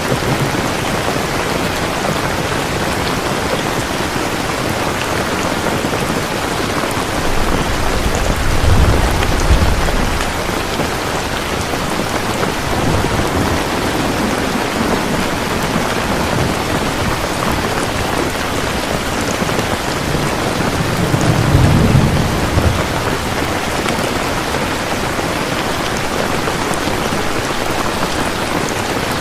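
Steady, heavy rain hissing evenly. Two low rumbles of distant thunder swell up under it, about a third of the way in and again about three quarters of the way through.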